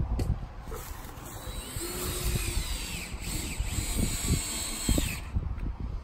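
Power drill driving screws to fix a strap hinge to a wooden gate. The motor whine starts about a second in, rises and falls in pitch as the trigger is worked, and stops near the end.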